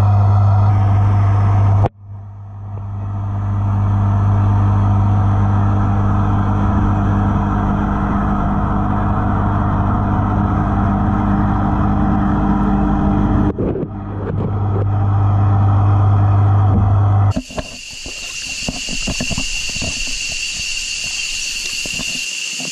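Steady low hum of an aquarium water pump, picked up through the water by a camera inside the tank, with two short breaks. About three-quarters of the way through it stops abruptly and is replaced by the hiss of a shallow flowing river with a steady high-pitched whine.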